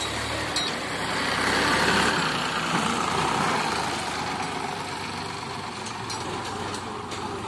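Diesel engine of a Sonalika tractor pulling a trolley through loose sand close by, running steadily. It grows louder about two seconds in as the tractor draws nearest, then eases back.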